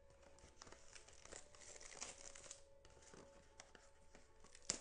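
Faint crinkling and tearing of plastic wrapping as a box of trading cards is unwrapped, with a sharp click near the end.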